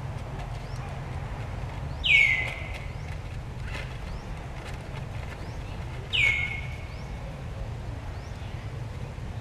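Two high whistled animal calls about four seconds apart, each dropping sharply in pitch and then held briefly, with faint short chirps in between over a steady low rumble.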